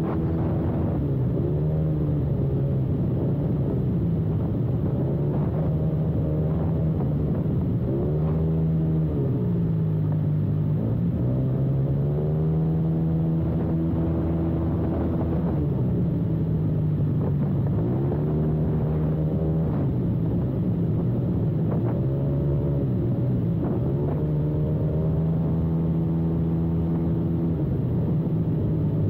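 Yamaha maxi-scooter engine running while riding, its pitch rising and falling again several times as the throttle is opened and eased off, over a steady rumble.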